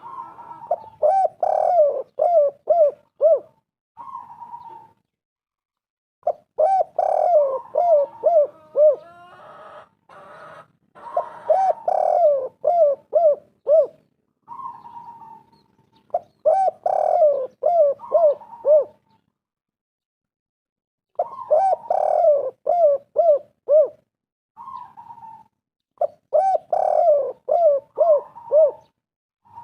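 Spotted dove cooing repeatedly: about six phrases roughly five seconds apart, each a quick run of coos that steps down in pitch, followed by a single short coo.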